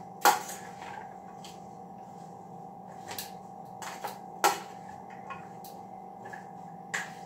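A spatula knocking and scraping in a frying pan as vegetables are stirred while they sauté in butter, several sharp knocks over a steady low hum.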